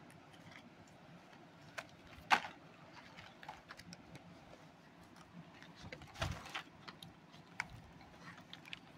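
Plastic packaging of art supplies being handled: scattered light clicks and crinkles, with a sharper tap about two and a half seconds in and a brief rustle around six seconds in.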